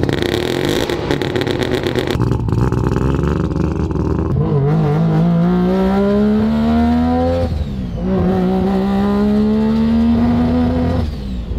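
Street-ported three-rotor Mazda rotary engine in an RX-7, first running choppily, then pulling hard under acceleration. Its note rises steadily through two gears and drops sharply at each upshift, about midway and near the end.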